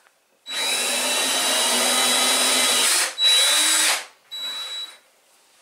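Power drill with a 5/16-inch diamond bit drilling into a porcelain-tiled wall, with a steady high whine over the grinding. It runs twice with a brief stop about three seconds in, then gives a shorter, quieter run that stops about a second before the end.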